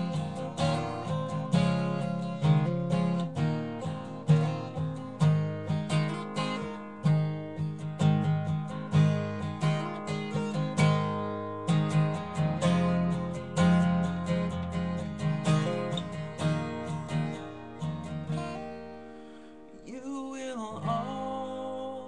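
Steel-string acoustic guitar strummed in a steady rhythm with a strong bass line, an instrumental break between verses of a gospel song. Near the end the guitar thins out and a voice comes in softly.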